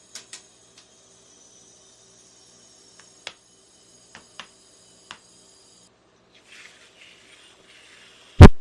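Metal spatulas working on a rolled-ice-cream cold plate: scattered light taps, then scraping about six and a half seconds in, and a single loud sharp knock near the end. A faint steady high whine runs underneath and stops about six seconds in.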